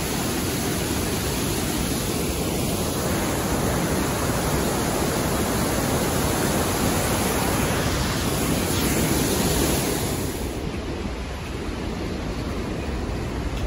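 Waterfall and river rapids rushing: a steady, continuous roar of falling and churning water that thins a little in its upper range about ten seconds in.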